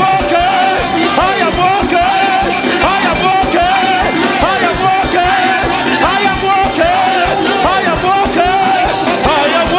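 Church music with a steady beat, with many voices praying aloud over it at once.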